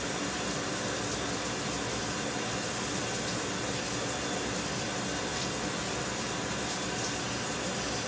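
Shower running: a steady, even hiss of spraying water that does not change.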